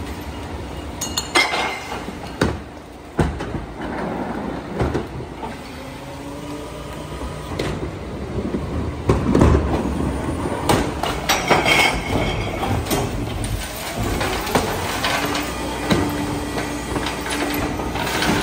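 Heil 5000 rear-loader garbage truck running while plastic trash carts are rolled up and tipped into its hopper: repeated clattering, knocking and metal clanks over the engine. A steady hum comes in near the end as a cart is lifted on the tipper.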